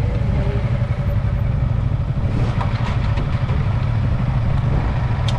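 Motorcycle engine running steadily, a dense low rumble heard close up from a camera mounted on the bike.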